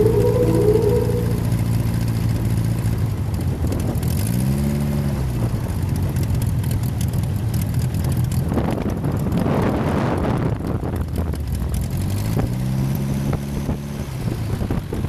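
Great Lakes biplane's piston engine and propeller running at taxi power. The engine speeds up and eases back twice: about four seconds in, and again near the end. A rushing hiss of air swells in the middle.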